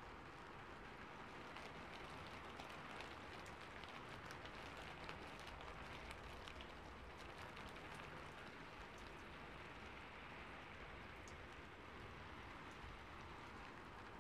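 Faint rustle and crackle of a sheet of origami paper being folded and pressed flat by hand, with scattered small clicks over a steady background hiss.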